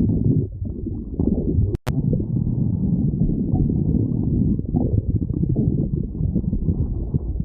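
Human stomach growling: a continuous, uneven low rumble. About two seconds in it cuts out briefly with a sharp click.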